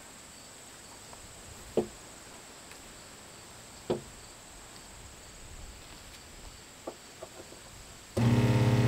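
SeaFlo 120-volt diaphragm pump sitting idle, shut off by its flow sensor while the outlet hose is kinked, then suddenly starting up with a loud, steady motor hum about eight seconds in as flow is demanded again. Before that there are a few faint knocks from the hose being handled.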